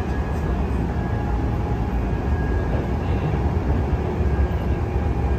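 Passenger train running, heard from inside the carriage: a steady low rumble with a faint thin whine above it.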